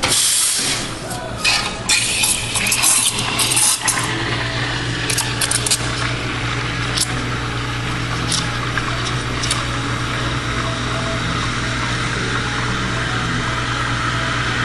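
Espresso machine steam wand hissing as it steams and textures milk in a stainless steel pitcher. Several sharp, uneven hissing bursts come in the first few seconds, then a steady hiss over a low hum.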